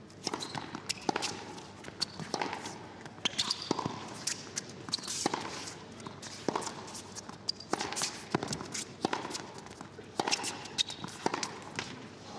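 A series of irregular sharp knocks and taps, about one or two a second, some ringing briefly.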